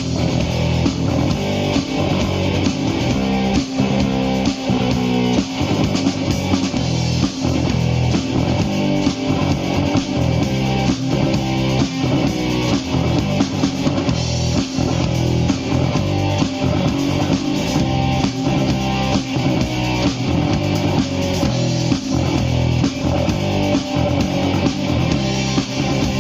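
Live rock band playing an instrumental outro: electric guitar, bass guitar and drum kit with a steady beat, no singing.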